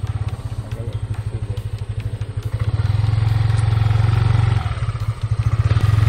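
Yamaha motor scooter's small single-cylinder engine running at low speed with a low, fast-pulsing note, getting louder a couple of seconds in, easing briefly and picking up again near the end.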